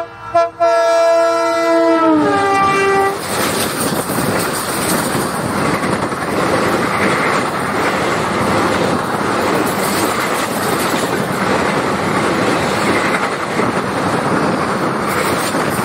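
An Indian Railways diesel locomotive sounds its multi-note horn as it passes close by. The horn drops in pitch as the engine goes past and stops about three seconds in. The passenger coaches then run past with a steady rush of wheel and rail noise.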